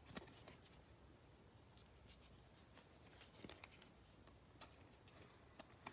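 Near silence with a few faint, soft ticks of trading cards being handled and slid past one another.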